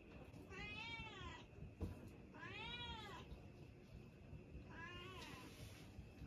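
A cat meowing three times, about two seconds apart, each call rising and then falling in pitch; the middle one is the longest and clearest. A soft knock comes between the first two meows.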